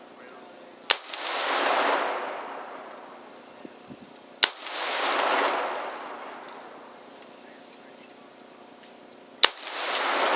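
Three sharp AR-15 rifle shots firing 55-grain .223 rounds, about a second in, about four and a half seconds in, and near the end, each followed by a long swell of rushing noise that rises and fades over a couple of seconds.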